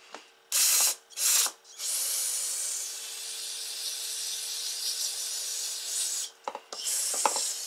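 Aerosol brake cleaner hissing out through its straw onto an electrical connector to wash oil off it: two short bursts, then one long spray of about four seconds, then another short burst near the end.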